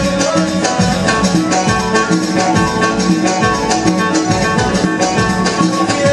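Live band music led by a banjo playing a plucked melody, over percussion keeping a steady, driving beat and keyboard.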